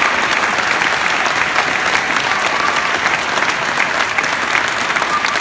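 Crowd applauding steadily: many hands clapping at once, easing off slightly near the end.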